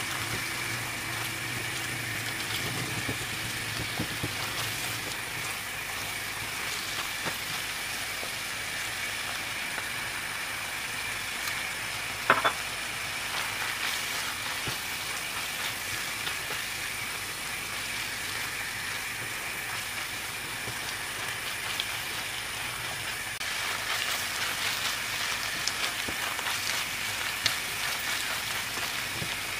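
Minced meat and onions sizzling steadily in a non-stick frying pan while a silicone spatula stirs them, with a single sharp tap about twelve seconds in and more stirring scrapes near the end.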